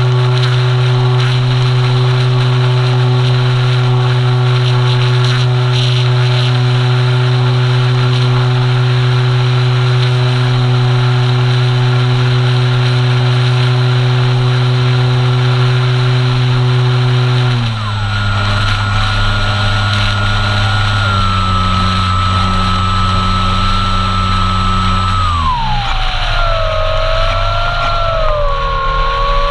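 Electric motor and propeller of an Apprentice RC trainer plane, heard from on board: a steady drone with wind rush, then about 17 seconds in the pitch drops as the throttle comes back. Near the end the whine slides lower and wavers up and down with throttle changes.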